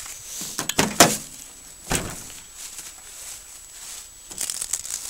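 Footsteps crunching through dry leaf litter, with rustling and a few knocks from a handheld camera being carried; the strokes are irregular, a couple early on and a quick cluster near the end.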